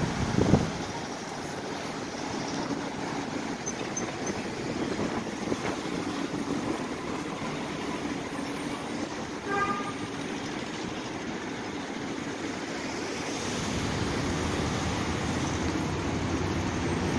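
Steady road traffic noise, with a brief thump about half a second in and a short horn toot near the middle. From about three-quarters of the way through, the low rumble of an approaching commuter train's diesel locomotive grows louder.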